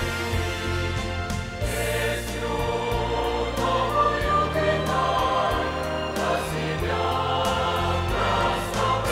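Mixed church choir of men and women singing a Russian hymn in parts, with sustained low accompaniment underneath.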